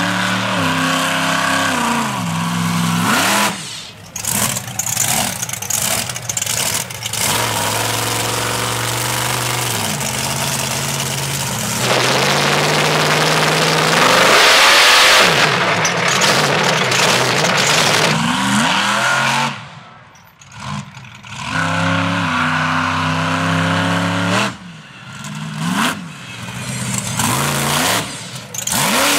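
Monster truck engine revving up and down in repeated throttle pulls as the truck drives. Partway through there is a few seconds of loud rushing noise, and the sound drops out briefly a few times.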